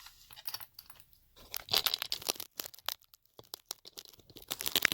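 Close handling noise of small hard objects: irregular clicks and scraping rustles, busiest about two seconds in and again near the end.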